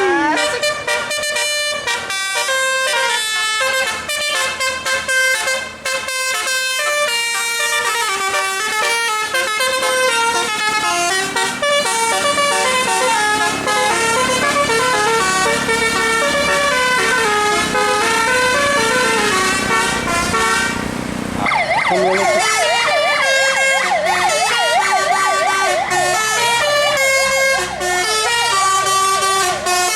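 Bus 'telolet' musical air horn playing a tune, several horn tones sounding together and stepping from note to note. About 21 seconds in it changes to a fast warbling siren-like wail over a steady high tone.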